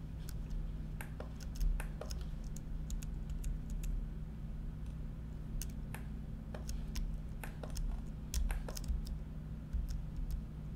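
Irregular clicking of a computer keyboard and mouse being worked, many separate clicks with uneven gaps, over a steady low electrical hum.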